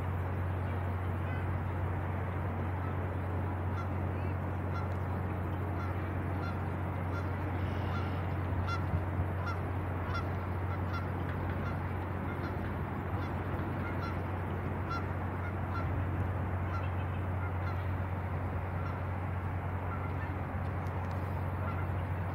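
Waterfowl honking repeatedly and faintly over a steady low drone of boat engines underway.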